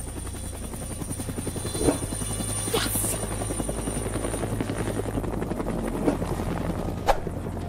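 Cartoon helicopter sound effect: rapid rotor chopping over a steady hum. A few short, sharp sounds stand out about 2, 3, 6 and 7 seconds in.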